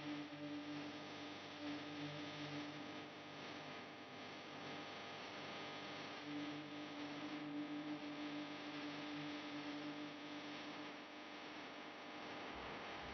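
Faint steady electrical hum over a soft hiss, from running workbench equipment. One hum tone comes and goes, strong for the first few seconds and again from about six to eleven seconds in.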